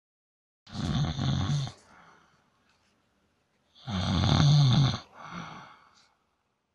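A man snoring in his sleep: two loud, rasping snores about three seconds apart, each trailing off into a softer breath.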